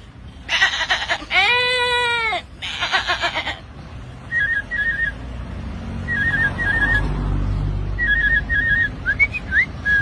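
A man imitating animal calls with his voice: a loud, bleating goat-like call with buzzy calls either side of it, then three short clusters of rapid, bird-like whistled chirps and a couple of quick rising whistles near the end.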